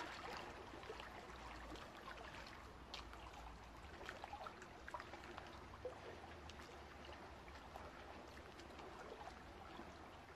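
Faint trickling, lapping water with many small scattered ticks over a low steady hum.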